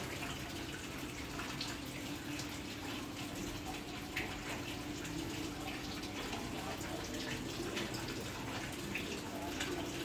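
Water running or trickling steadily, with scattered small drips and a steady low hum underneath.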